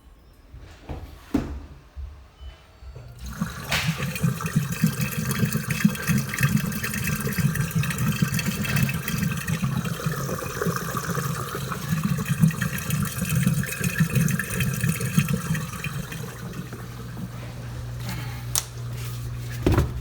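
Water rushing down the sink drain with a steady motor hum, starting suddenly about three seconds in. This is a leak test of a new dishwasher air gap, with drain water running through the air gap into the garbage disposal.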